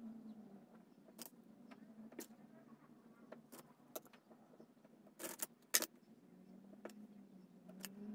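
Wooden craft sticks being handled and laid onto a small stick-house roof: scattered light clicks and clacks of wood on wood, with two louder clacks a little past halfway, over a faint low hum.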